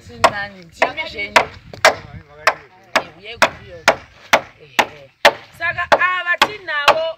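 Hammer driving nails into the wooden rafters of a roof frame: sharp, even strikes about two a second. Voices talk in the background, loudest near the end.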